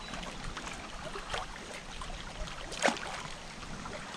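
River current lapping and splashing around an inflatable river tube and the camera held just above the water, with a brief, sharper splash about three seconds in.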